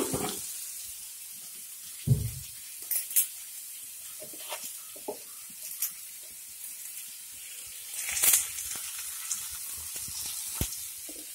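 Sliced onions, green chilies and garlic sizzling as they fry in coconut oil in a pan, a steady high hiss. A low thump about two seconds in and a few short scrapes and knocks of utensils, the loudest about eight seconds in.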